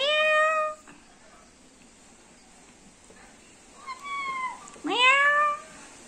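Black-capped lory mimicking a cat's meow. There is a loud meow that rises and then holds for under a second at the start. About four seconds in comes a softer falling note, followed by a second loud, rising meow.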